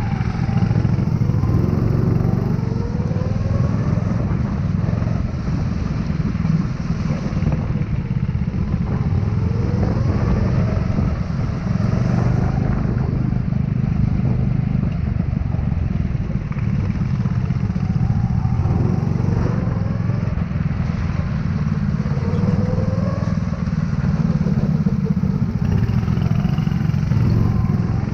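Go-kart engine running under way, revving up and easing off again and again, its pitch rising several times over the stretch.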